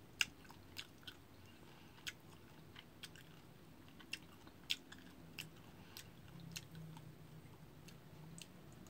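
A person biting and chewing fresh fruit slices: about a dozen sharp, irregular crunches and mouth clicks.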